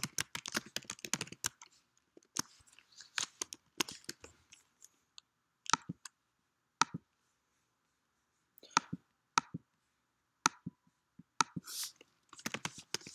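Typing on a computer keyboard: a fast run of keystrokes, then scattered single clicks a second or so apart, then another quick run of typing near the end.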